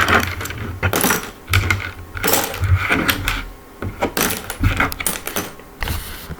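Small shape-puzzle pieces (diamonds, triangles, trapezoids, hexagons) clicking and clattering against each other and the board as they are picked up and put back, in irregular bursts of taps.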